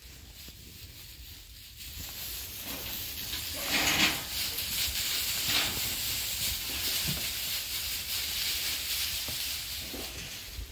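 Sheep shuffling and moving through loose straw bedding, a steady rustling hiss that swells about two seconds in and is loudest around four seconds in.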